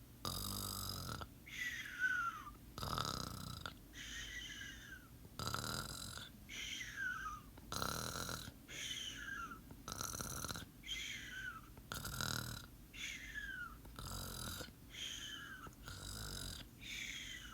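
Slow, regular snoring, about one breath every two seconds. Each breath is a rough snore followed by a thin, high whistle that slides down in pitch.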